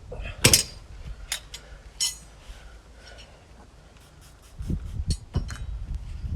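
Metal tools clinking and knocking against a motorcycle wheel rim while the tyre is worked off it: a few sharp clicks, the loudest about half a second in, then several duller thumps near the end.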